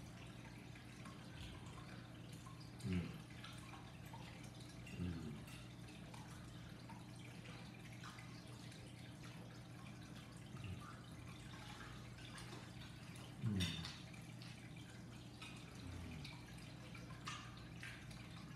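Close-up eating sounds: wet chewing and mouth smacks with small clicks of a fork on a plate. About five short, low sounds falling in pitch stand out from the chewing, the loudest about three seconds in and again about thirteen seconds in, over a steady low hum.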